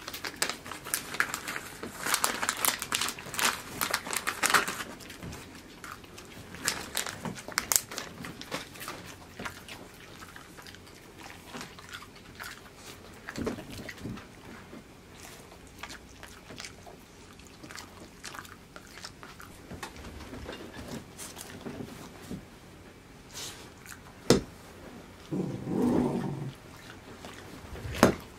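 Kai Ken dogs biting and chewing hand-fed treats, with irregular crunching clicks that are densest in the first few seconds. A short low vocal sound is heard near the end.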